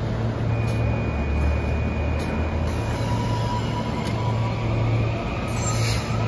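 SEPTA Silverliner V electric multiple-unit train running at the station platform: a steady low rumble and hum, with a thin steady whine through the first half.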